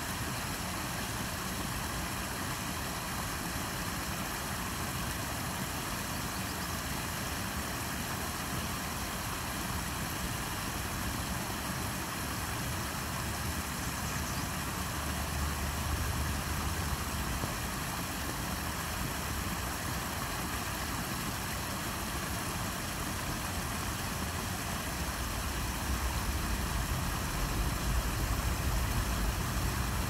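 Small waterfall: a shallow stream spilling over a low rock ledge into a pool, a steady rush of running water. A low rumble swells briefly in the middle and again near the end.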